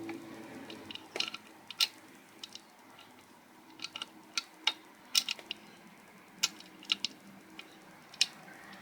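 Sharp metallic clicks and taps of a hand tool on metal, irregularly spaced, as the cam tensioner body is tightened into the engine.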